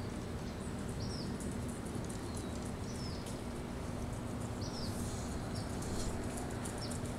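A bird repeating short, high chirps, each a quick falling note, roughly once a second, over steady outdoor background noise with a faint low hum.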